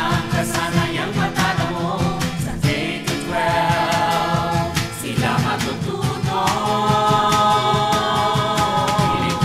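A jingle sung in Filipino over a band backing with a steady beat, the voices holding a long note in the last few seconds.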